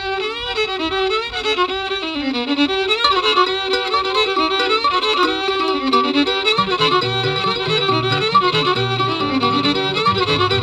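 Fiddle playing the lead melody of a bluegrass song's instrumental intro, with sliding notes. Lower accompaniment comes in about six and a half seconds in.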